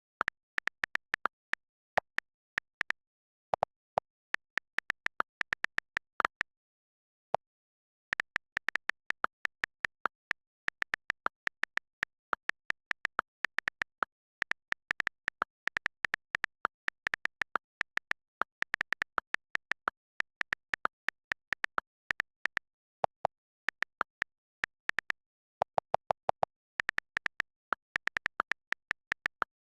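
Keyboard key-press sounds on a phone: short, sharp synthetic pops, several a second in uneven runs, with a gap of over a second about a quarter of the way in.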